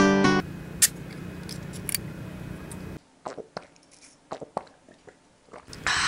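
Guitar music cuts off, and a person drinks from a Pepsi can: a sharp click about a second in, then a run of short gulping and swallowing sounds, and a loud breathy hiss near the end.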